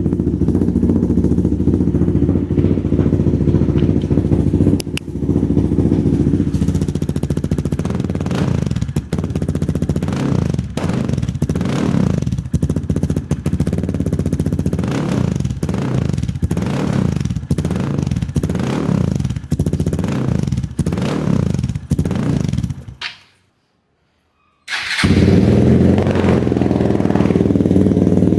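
Hero Xpulse 200 4V's single-cylinder engine breathing through a Norifumi Noctus T4 aftermarket full exhaust, idling steadily and then revved in quick throttle blips about once a second. Near the end the sound drops out for under two seconds, and then the idle resumes.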